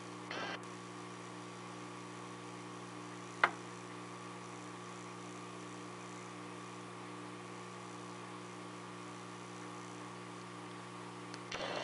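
Smith Corona Coronet 12 electric typewriter's motor running with a steady hum, one sharp click about three and a half seconds in, and a few brief mechanical noises near the end.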